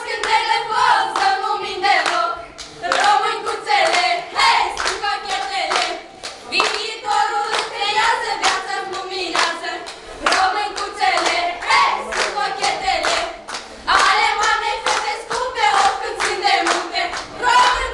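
A group of voices singing a lively sârbă folk dance tune, with steady hand-clapping in time to the beat.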